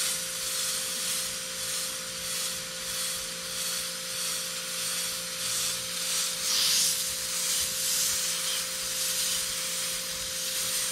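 Badger Anthem 155 siphon-feed airbrush hissing as it sprays paint in short strokes, the air swelling and fading with each pull of the trigger and loudest about two-thirds of the way through. A steady low hum runs underneath.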